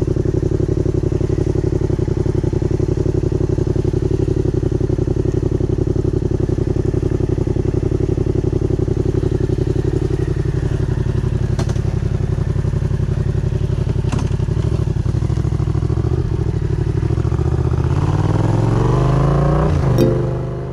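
Yamaha MT-07 parallel-twin engine with a Danmoto aftermarket exhaust, idling steadily with two sharp clicks in the middle, then rising in pitch as the bike pulls away over the last few seconds.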